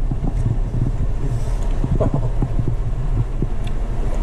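Close-up chewing of maktak, bowhead whale skin and blubber, heard as irregular wet clicks and crackles over a steady low rumble on the microphone.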